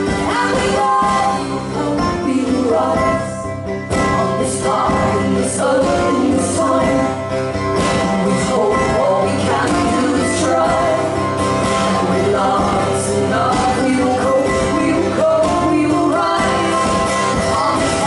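Two women singing live to mandolin and acoustic guitar.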